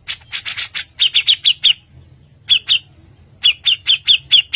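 Songbird calling: a quick burst of harsh, scratchy notes, then series of short, sharp downslurred notes at about four to five a second, broken by a short pause.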